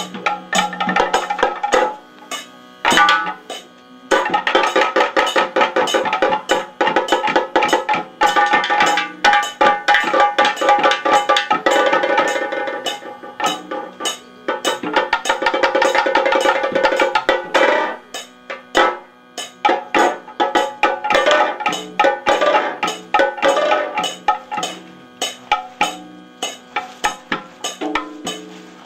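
Kathakali percussion music: fast, dense drumming with steady ringing metallic tones over it, thinning out briefly a few times.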